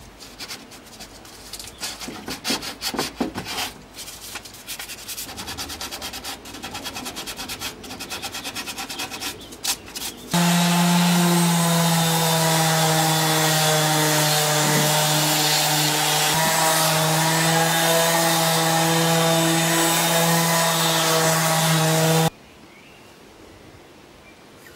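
Irregular hand rubbing and scraping on a wooden board for about ten seconds. Then an electric orbital sheet sander runs on the wood for about twelve seconds: a steady hum with a hiss of the abrasive, cutting off suddenly near the end.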